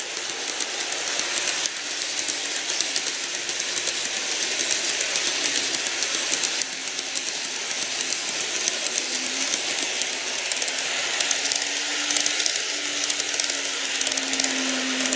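Model freight train of tank wagons rolling along model track: a steady fine rattle of small wheels over the rails and joints. In the second half a faint low hum joins in as a model EMU comes through on the other track.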